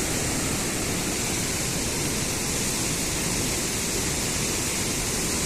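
Floodwater of the Indus River rushing steadily, a constant even noise of fast-moving water running high.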